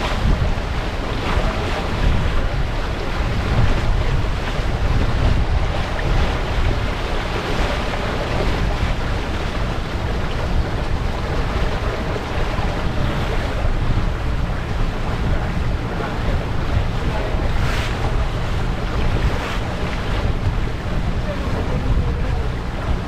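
Wind buffeting the microphone over the steady rush of water along a sailboat's hull while under way, with a couple of brief louder swishes of water near the end.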